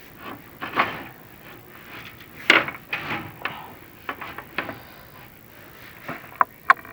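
A chimney inspection camera and its cable scraping and knocking against the inside of the flue as it is lowered down, in irregular rubs and bumps with a louder scrape about two and a half seconds in and a couple of sharp knocks near the end.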